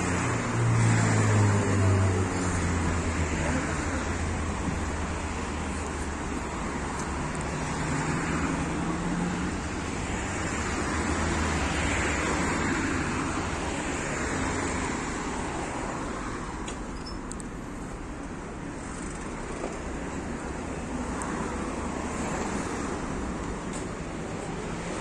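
Street traffic: cars passing on the road, swelling and fading as each goes by. A car engine hums low and close in the first few seconds, the loudest moment.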